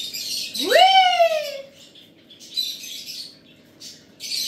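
Alexandrine parakeets giving harsh, screechy squawks several times. About a second in comes one drawn-out meow-like wail that rises steeply and then slowly falls.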